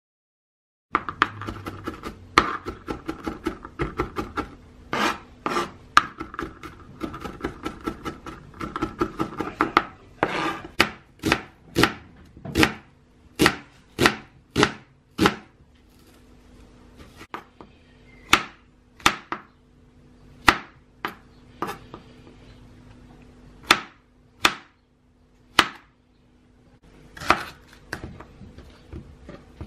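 Kitchen knife chopping onion and yellow capsicum on a plastic cutting board. Rapid, dense chopping for the first ten seconds or so, then evenly spaced cuts about two a second, then slower single cuts with pauses between them.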